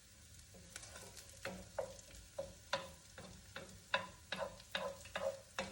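Onion frying in a foil pan while being stirred, with a faint sizzle and a run of short utensil strokes against the pan, about two a second from about a second and a half in.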